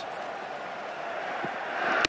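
Large stadium crowd at a cricket match: a steady hum of crowd noise that swells toward the end.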